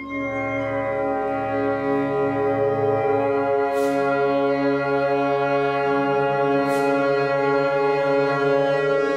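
An orchestra holding a dense, sustained chord of many steady tones, swelling in over the first second and then held evenly. Two brief soft hissing swells rise over it about 4 and 7 seconds in.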